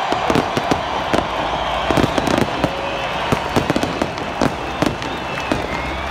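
Stadium fireworks going off in a rapid, irregular string of sharp bangs and pops, more than a dozen in six seconds, over a steady background roar.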